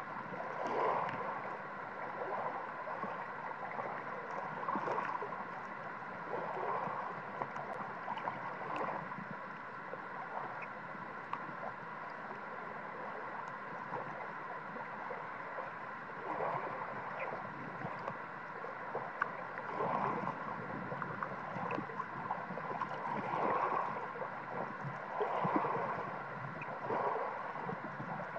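Shallow water lapping and gurgling at the water's edge, heard by a submerged camera: a steady hiss with gurgling swells rising and falling every few seconds.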